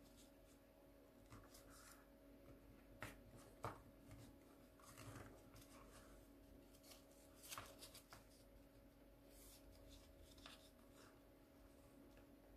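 Faint rustling and crinkling of a sheet of paper being folded and creased by hand, with a few sharper taps and crackles, over a low steady hum.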